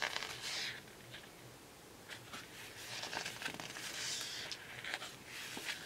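Paper pages of a sticker book being turned and handled: a few soft rustles with light ticks, the loudest about four seconds in.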